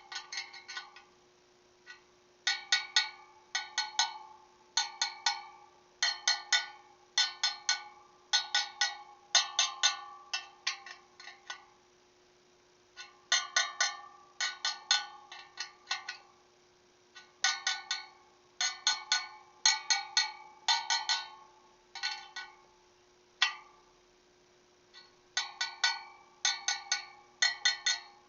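Steel spokes of a freshly laced motorcycle wheel tapped one after another, each giving a short ringing note; a spoke that rings lower than the rest is a loose one. The taps come in quick runs of three to six with short pauses between.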